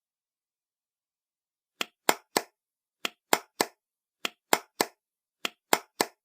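Hand claps in a repeating pattern of three quick claps, the groups about a second and a quarter apart, starting about two seconds in; four groups in all.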